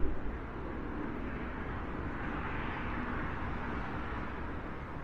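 Steady outdoor noise with low rumble as a vehicle passes, its sound swelling about two seconds in and then fading.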